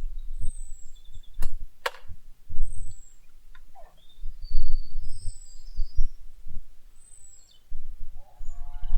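Birds singing in the background, a string of short high chirps repeating every second or two, over irregular low thumps and rumble. Two sharp clicks come about one and a half and two seconds in.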